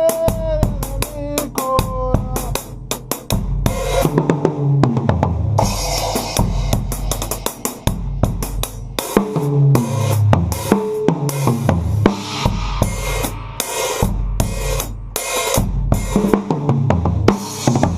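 Acoustic drum kit played without microphones, a continuous groove of snare, bass drum, hi-hat and cymbal hits, with pitched melodic notes from the song being covered underneath.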